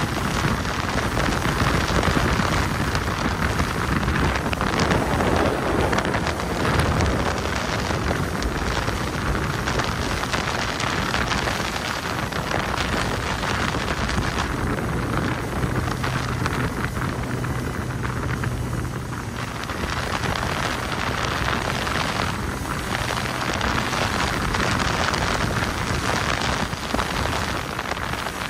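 Motorboat under way: a steady rush of churning wake and spray, with wind on the microphone. A low engine hum comes through for several seconds past the middle.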